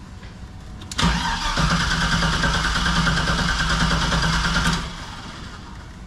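LS V8 engine in a Chevy K5 Blazer cranking on the starter for about four seconds without catching, then stopping. The failed start is a sign that something in the newly installed LS wiring harness is not working.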